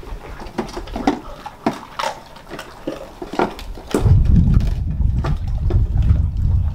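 Dogs crunching and gnawing frozen raw chicken feet and mackerel in their bowls, with a quick run of sharp crunches and knocks. About four seconds in, a steady low rumbling noise comes in and dominates.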